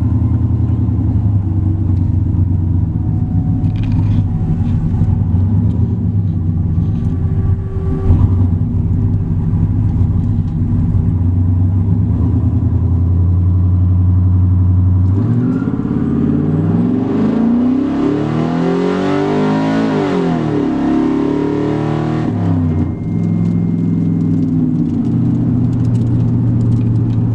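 Truck engine running steadily at low revs while driving. About fifteen seconds in, it pulls hard under full throttle: the revs climb for several seconds and then drop back, and the engine settles into a steady drone again.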